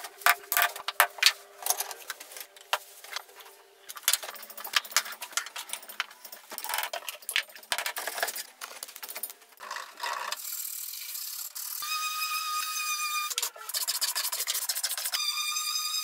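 Wooden slats clicking and knocking as they are handled and fitted around a cylindrical form. About ten seconds in, a DeWalt random orbital sander starts running with a steady whine over the wooden surface; it stops briefly and starts again near the end.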